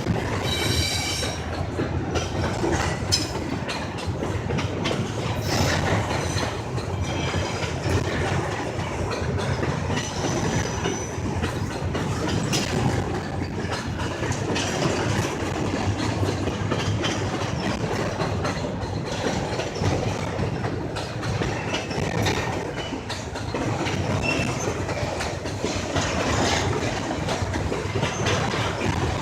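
Freight train cars rolling past, wheels clacking steadily over the rails, with brief high-pitched wheel squeals about a second in and again around ten seconds in.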